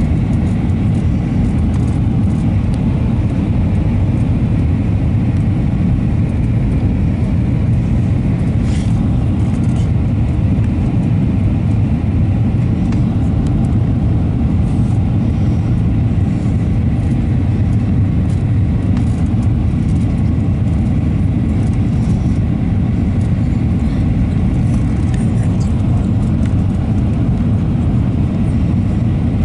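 Steady low rumble of engine and airflow noise heard inside the cabin of an Airbus A320-232 on its descent, with its IAE V2500 engines. The noise holds even throughout.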